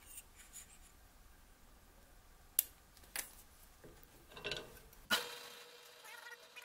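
Light clicks and taps of a plastic cutting-oil squeeze bottle being used and set down at a drill press vise. About five seconds in there is a sharper click, after which a faint steady hum is heard.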